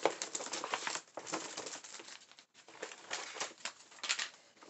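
Rustling and crinkling of a shopping bag and packaged items being handled, a run of irregular crackles and scrapes.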